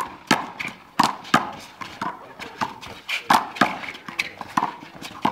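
One-wall handball rally: the small hard ball smacked by bare hands and against a concrete wall in quick succession, a dozen or so sharp cracks, each echoing briefly off the concrete.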